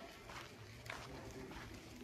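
Faint footsteps on pavement, about two steps a second, over a low steady hum.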